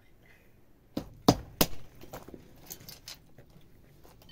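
Walnuts being cracked by striking them with a flat hand-held stone: a series of sharp, irregular knocks and cracks starting about a second in, the hardest strikes coming close together near the start.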